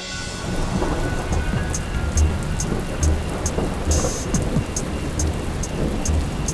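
Heavy rain pouring down, setting in right at the start, with thunder rumbling low beneath it.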